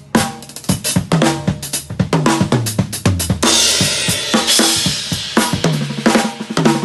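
Acoustic drum kit played hard during a sound check: rapid strokes on snare and toms in a fill that steps down in pitch, a crash cymbal hit about halfway through that rings for a second or two, then the beat picks up again with kick and snare.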